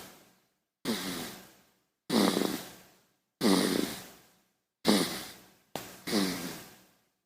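A baby snoring: six short snores, each starting abruptly with a brief rasp and fading away, about every second and a half, the last two close together.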